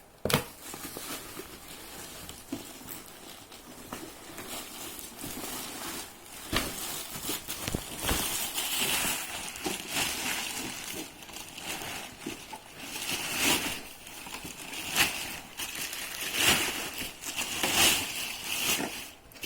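Packaging being handled: crinkling and rustling with scattered knocks, growing louder in repeated swells over the second half.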